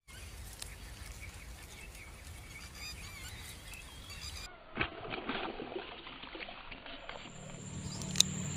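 Faint outdoor background with a few short bird chirps. About halfway the sound changes abruptly, and a sharp click comes near the end.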